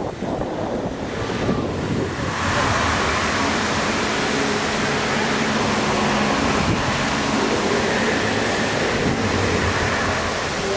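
Steady rushing of splashing fountain water, swelling about two seconds in and then holding even.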